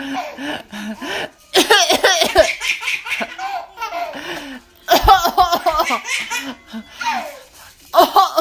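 Eight-month-old twin babies laughing in fits, three bouts of giggling a few seconds apart.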